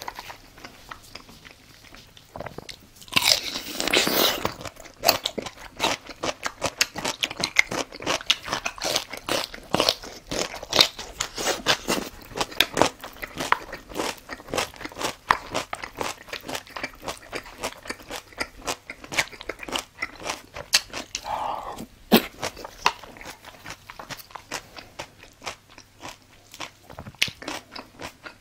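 A person chewing a mouthful of food close to the microphone, with rapid wet crunches and clicks. A louder noisy stretch comes about three seconds in, and a short hum near the end.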